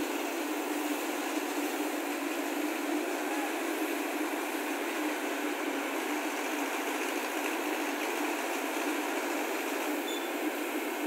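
Mobile crane's diesel engine running steadily as it hoists a steel girder member.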